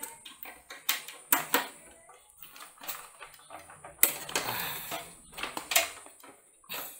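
Irregular clicks, knocks and rustling of power-supply cables and plastic connectors being handled and pushed into place inside a metal PC case. A sharper knock and a longer scraping rustle come about four seconds in.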